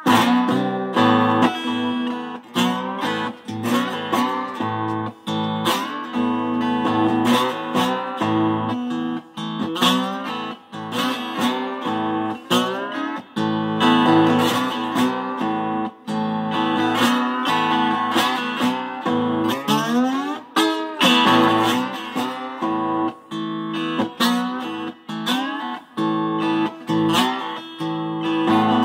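Lap steel guitar played flat on the lap: picked single notes and chords, continuous throughout, with the pitch sliding up and down between notes.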